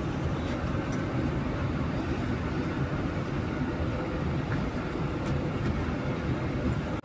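Steady low rumble of cabin noise inside an electric AC sleeper bus, with no engine note.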